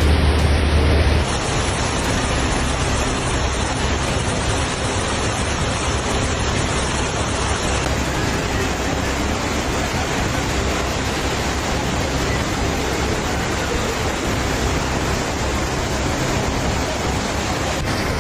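Rushing water: a steady, even hiss, changing abruptly about a second in and again about eight seconds in.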